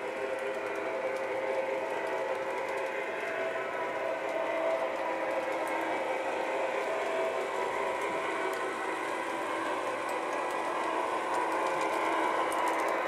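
Lionel U30C O gauge diesel locomotive with a Proto-Sound 2.0 board running along three-rail track: electronic diesel engine sound from its onboard speaker over a steady mechanical motor and running noise, slowly getting louder as it comes closer.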